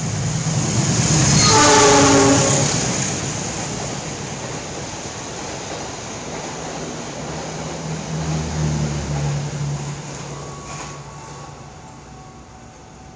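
Argo Parahyangan express passing through the station without stopping. Its diesel locomotive sounds a horn blast about two seconds in, then the coaches' wheels rush by on the rails, the noise fading gradually as the train goes on.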